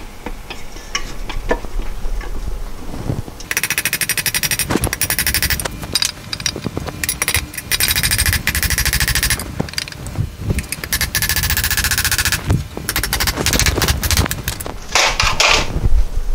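Power impact tool rattling in four bursts of rapid hammering, each a second or two long, with single knocks and clinks of tools and parts in between.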